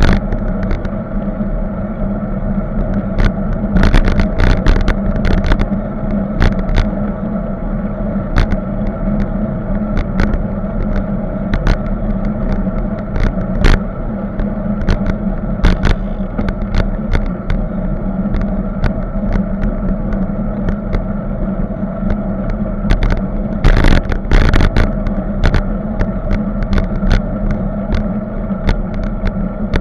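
Wind and road noise on a camera mounted on a moving bicycle: a steady rushing hum broken by frequent sharp clicks and rattles as the bike goes over bumps, with clusters of rattling about four seconds in and again about three-quarters of the way through.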